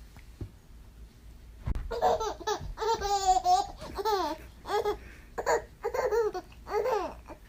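A baby laughing in a string of short bursts that begins about two seconds in and stops shortly before the end.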